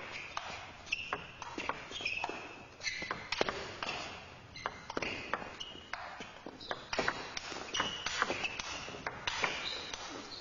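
Table tennis rally: the celluloid ball clicking sharply off bats and table several times a second, with short high squeaks between the hits from players' shoes on the court floor.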